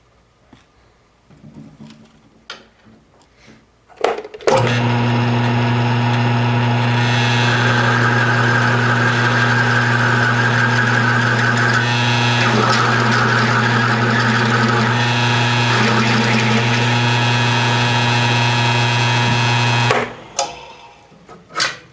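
Milling machine spindle starts about four seconds in and runs with a steady hum, its drill bit cutting through the oiled steel hub flange to open a lug-stud hole to size for a press fit, with a rougher cutting sound in two stretches. The motor shuts off near the end, after a few light clicks at the start.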